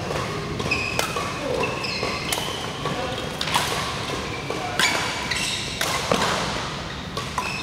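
Badminton rackets striking a shuttlecock in a rally: sharp smacks about a second apart, echoing in a large hall over background voices.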